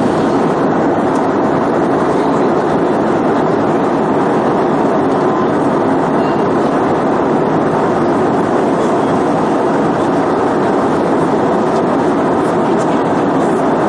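Steady cabin roar of an Airbus A320-214 in cruise, heard from a window seat behind the wing: air rushing past the fuselage and the drone of its CFM56 engines, even and unbroken.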